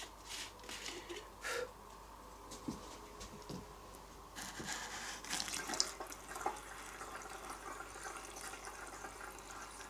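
Petrol poured from a bottle into the fuel tank of a motorized snow tow, a faint trickle of liquid filling the tank, with a few light knocks in the first second or two.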